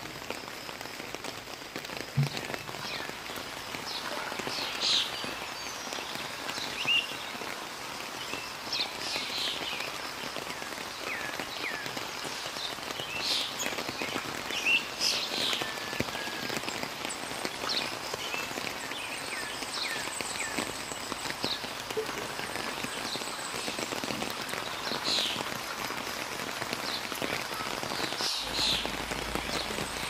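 Steady rain falling on garden foliage: an even patter throughout, with short, high-pitched sounds scattered through it.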